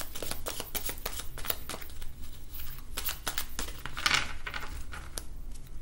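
A deck of cards being shuffled by hand: a run of short soft clicks and card-on-card rustles, louder about three and four seconds in.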